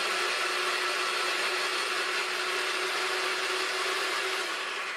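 Ninja Precision Processor's auto-spiralizer running loudly and steadily, its motor driving the fettuccine blade disc through a peeled potato. The motor noise holds one steady tone and fades out near the end as the unit winds down.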